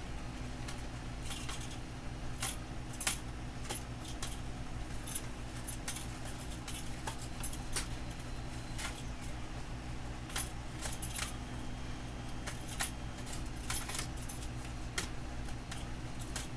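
Edge of a plastic clipboard scraped and pressed across an adhesive PEI sheet on a steel printer bed, squeegeeing it down. It makes irregular sharp clicks and short scrapes over a steady low hum.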